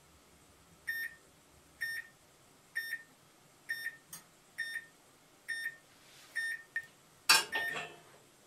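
An electronic beeper gives a short, high beep about once a second, eight times. Near the end comes a loud metallic clank and rattle as the small cast-iron pan is lifted off the gas stove's grate.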